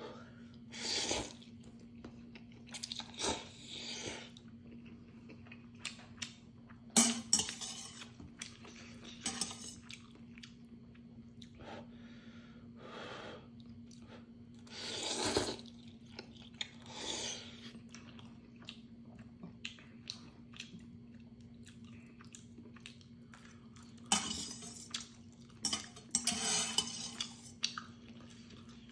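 A person slurping and chewing Neoguri instant ramyeon noodles: long slurps in separate pulls, the longest run about 24 to 27 seconds in, with wet chewing and short clicks between. Metal chopsticks clink now and then against a stainless steel bowl.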